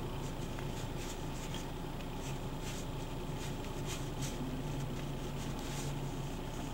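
Ink-loaded water brush dragging across the coarse side of Japanese rice paper in a series of short strokes, about one every half second, over a steady low hum.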